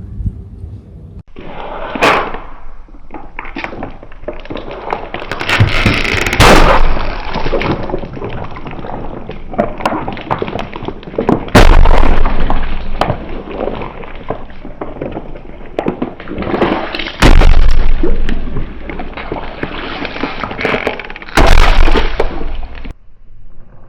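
Objects crushed under a car tyre: continuous crunching and crackling, broken by four loud bangs spaced a few seconds apart, as things burst or break under the wheel.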